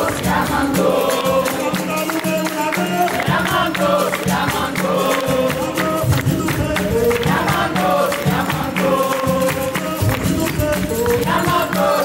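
A live capoeira bateria: berimbaus, pandeiros and an atabaque drum playing a steady rhythm under voices singing together.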